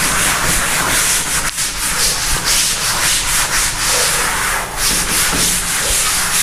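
A cloth duster rubbed quickly back and forth across a chalkboard, erasing chalk writing: a continuous scratchy swishing made of rapid strokes.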